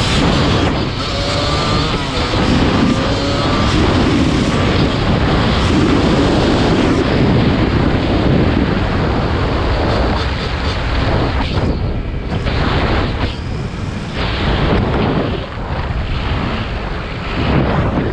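Motorcycle engines running and revving under heavy wind rush on the microphone, with a few rising engine notes in the first few seconds.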